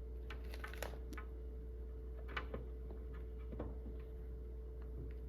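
Faint, scattered light clicks and taps as a plastic screen protector film is handled and pressed against a flatbed scanner's glass, over a steady electrical hum.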